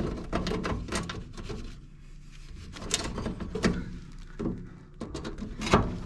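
Irregular clicks and knocks of screws being worked out of a range hood's sheet-metal bottom plate, with a sharper knock near the end.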